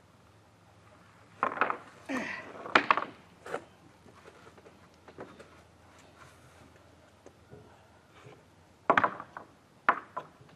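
Knocks and clattering of lumber and tools being handled during wooden subfloor work: a cluster of sharp knocks about a second and a half in, then a few more near the end.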